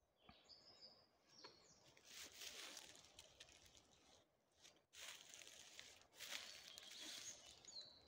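Faint forest ambience: a few short, high bird chirps near the start and end, with two stretches of rustling noise of a couple of seconds each in between.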